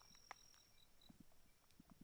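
Faint insect chirping in short, evenly spaced pulses a few times a second, with a thin steady high whine that stops partway through. Soft scattered crunches and clicks of footsteps on a trail come through underneath.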